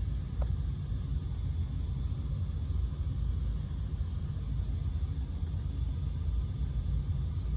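Steady low rumble of background noise, with a faint click about half a second in.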